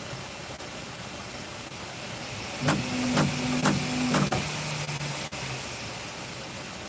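Bambu Lab P2S 3D printer running with a steady fan hiss; about three seconds in, its motors hum at two pitches for a second and a half under a quick run of about five sharp clicks, then the lower hum fades.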